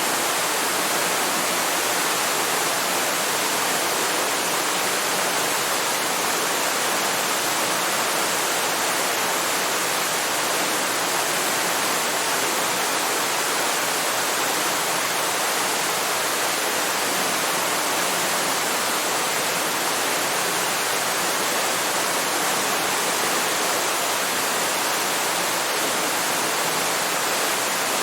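Waterfall: a steady, unbroken rush of falling water, hissy and even, with no deep rumble.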